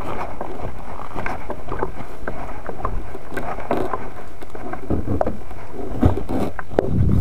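Rubbing and rumbling noise on the small onboard camera's microphone, with wind and scattered irregular knocks; no motor tone is heard.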